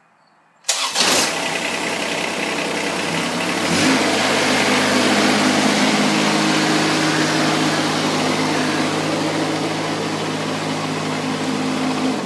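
Tractor engine starting abruptly about a second in, then running steadily with an even low engine note.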